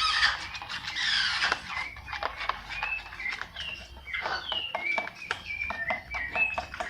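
A small spoon beating egg and dish detergent in a pot: quick repeated taps with many short, high squeaks.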